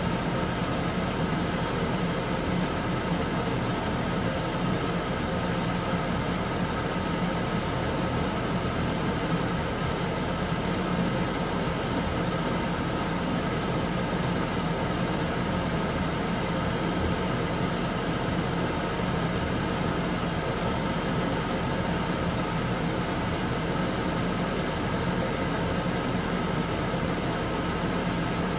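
Beef fat pieces boiling in water in a wok, an even bubbling hiss under a steady mechanical hum that does not change.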